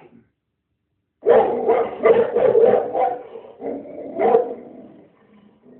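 A dog barking: silent at first, then a quick run of loud barks starting about a second in, followed by a few more spaced-out barks that trail off near the end.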